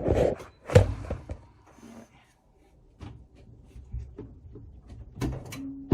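A sharp knock about a second in, then a few scattered clicks and faint handling rustle: someone handling a clothes dryer while unplugging its power cord.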